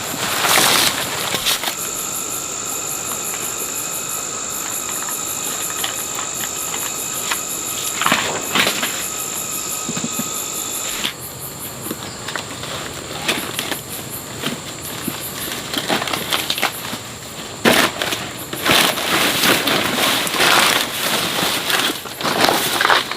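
Insects calling steadily in a high, even drone that stops about halfway through, with repeated bursts of rustling and crackling, most frequent in the second half.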